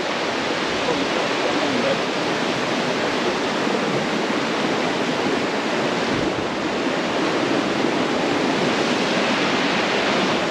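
A river in high water rushing over rapids, a steady, unbroken rush of water.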